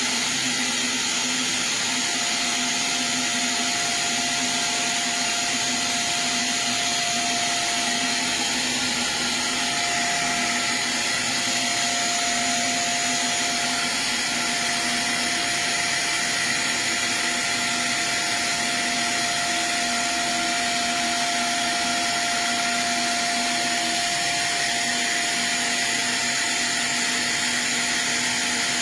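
Vinyl recording lathe running: a steady rushing hiss like a vacuum, with a few constant whining tones over it.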